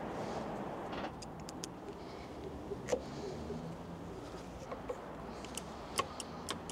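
Scattered small clicks and ticks of a screwdriver and the small metal cap screws as the front brake master-cylinder reservoir cap is screwed back down, over a steady background hum.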